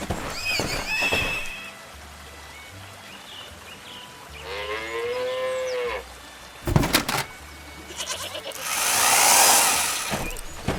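A cow mooing once, a pitched call about a second and a half long near the middle. A few short chirpy tones come before it. After it come a couple of sharp knocks and a louder whoosh that swells and fades near the end.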